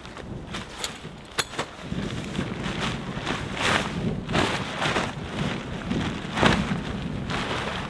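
A lightweight tarp being shaken out and flung open, its fabric flapping and rustling in a series of loud whooshes that start about two seconds in, after a few footsteps on dry ground.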